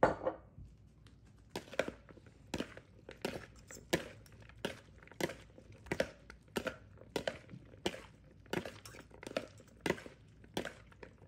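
Cucumber and mango salad tossed by hand and spoon in a plastic bowl: a short wet crunch with each stroke, about two a second, beginning about a second and a half in. A knock at the very start.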